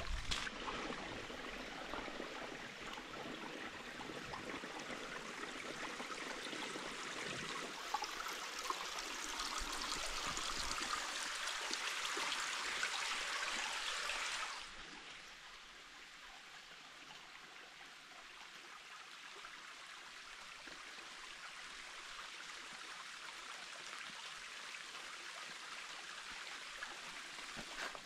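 Water of a small stream rushing and trickling steadily, louder for the first half, then suddenly quieter about halfway through.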